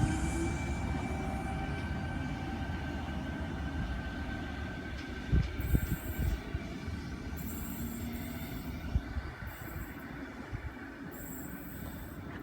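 Sydney Trains C-set double-deck electric train with chopper-controlled traction motors moving through the station: a motor whine rises at the start over wheel and rail rumble, then the train noise fades steadily, with a few knocks about five seconds in.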